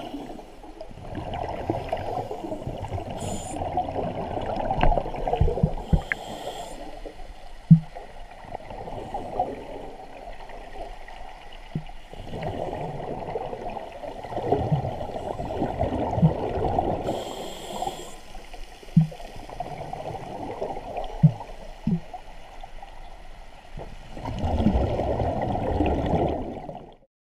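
Scuba diver breathing through a regulator, heard underwater: repeated gurgling rushes of exhaled bubbles lasting a few seconds each, broken by short hisses of inhalation. The sound cuts off suddenly near the end.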